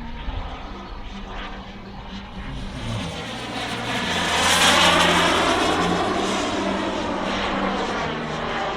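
Turbine of a radio-controlled Eurofighter Typhoon model jet on a flypast: a jet whine and rush that grows to its loudest about halfway through and then fades as the jet passes and moves away.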